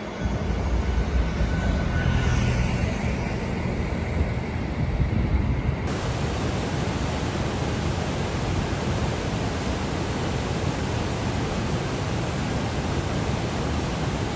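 Water rushing over a river weir: a steady, even whitewater hiss that sets in abruptly about six seconds in. Before that, a lower, duller outdoor rumble.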